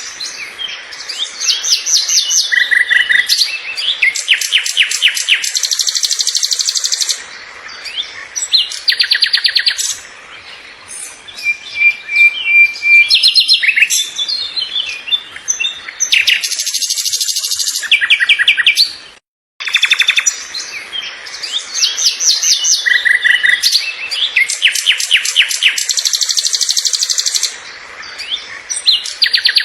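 Several birds chirping and singing in fast trills and quick repeated high notes. There is a brief dropout about two-thirds of the way through, after which the same chorus appears to repeat.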